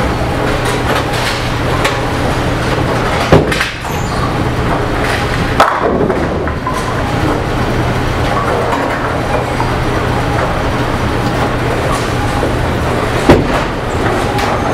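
Bowling alley din: the steady rumble of balls rolling down the lanes, with sharp crashes of pins being hit about three seconds in, again about two seconds later, and once more near the end.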